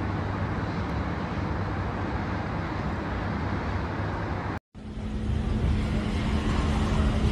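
Steady low outdoor background rumble with no sudden blast in it. It drops out abruptly for a moment a little past halfway and comes back with a steady low hum, slowly growing louder.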